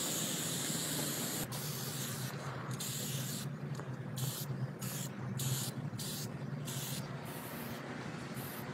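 Spray paint hissing, steady at first, then from about two seconds in let off in short bursts with brief gaps, roughly one or two a second.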